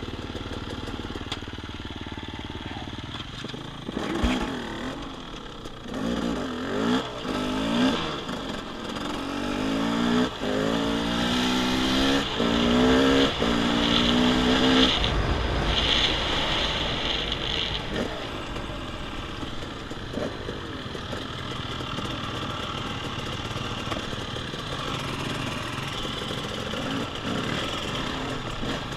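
Dirt bike engine running, revved up repeatedly with pitch rising and falling several times from about 4 s to 15 s in, then settling back to steady low running.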